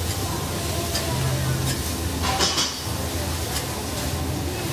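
Metal spatula clinking and scraping on a teppanyaki griddle as the chef turns food, in scattered clicks with the loudest cluster about two and a half seconds in.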